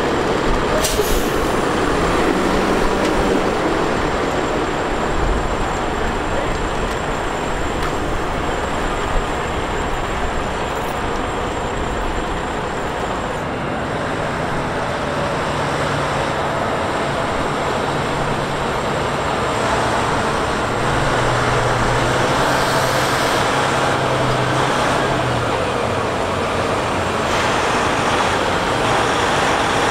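Heavy-haul semi truck's diesel engine running under load as it pulls a lowboy trailer carrying a large excavator, with a steady rumble of road noise. About twenty seconds in, the engine note drops a little lower and gets slightly louder.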